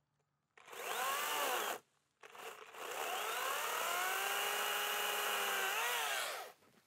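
Makita cordless 18V top-handle chainsaw cutting an overhead tree limb: a short run of about a second with the motor whine rising and falling, then a longer cut of about four seconds that winds up to a steady high whine, dips briefly near the end and cuts off.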